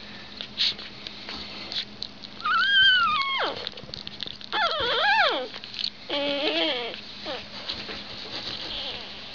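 Week-old chocolate Havanese puppies whimpering: three short, high cries, about two and a half, four and a half and six seconds in, the first rising then falling and the last lower. Between them come a few faint rustles.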